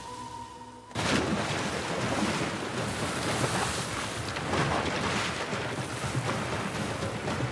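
A jaguar lunges from a riverbank into the water about a second in. There is a sudden heavy splash, then water keeps churning and splashing steadily. Before the lunge a few held music notes sound and end abruptly.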